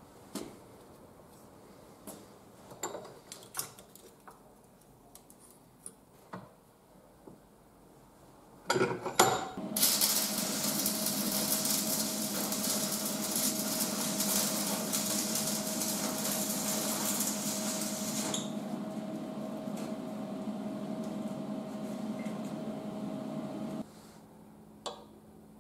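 A few light metal clicks and knocks from steel parts being handled. Then an electric welding arc strikes after some sharp crackles and runs for about fifteen seconds as a steady crackling hiss with a hum beneath it, then cuts off abruptly. A single click near the end.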